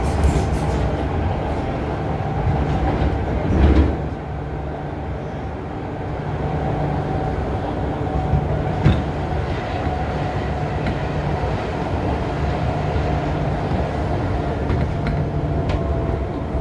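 MTR M-Train electric multiple unit running, heard from inside the carriage: a steady rumble of wheels on rail, with a brief louder swell about four seconds in and a single sharp click near nine seconds.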